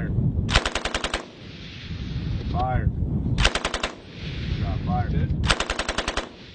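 Tripod-mounted machine gun firing three short bursts of rapid automatic fire, each under a second long.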